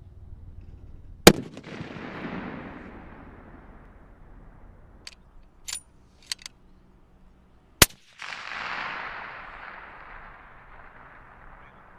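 Two rifle shots on a sniper range, about six and a half seconds apart, each followed by a long echo rolling away and fading. A few faint clicks come between the shots.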